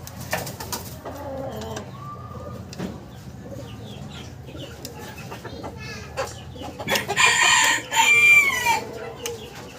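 A rooster crowing once, loudly, about seven seconds in, the crow ending in a falling note, with faint clucking and short calls before it.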